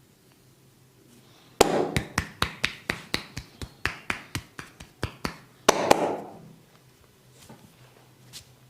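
Massage percussion: hands striking the body in a fast, even run of about five sharp slaps a second for some three and a half seconds, followed by two louder strikes in quick succession.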